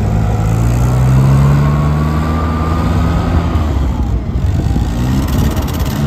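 Bobcat 642B skid steer's engine running. It revs up about a second in, eases off, then dips and rises in pitch again about four seconds in as the machine is worked.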